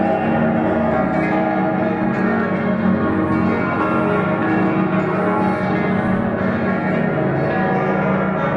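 Many church bells across a city ringing at once, their strokes overlapping into a dense, continuous wash of bell tones.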